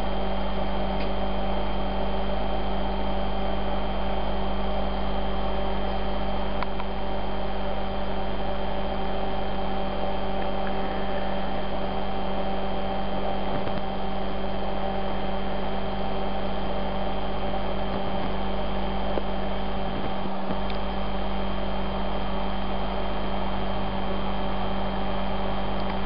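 Steady electrical hum made of several held tones over a faint hiss, unchanging throughout, with a few faint clicks.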